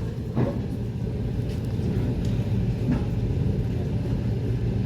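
Passenger train running, heard from inside the carriage: a steady low rumble with a few faint knocks.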